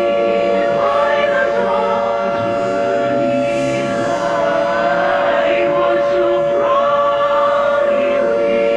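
Choir singing with music over a steady, unchanging droning tone.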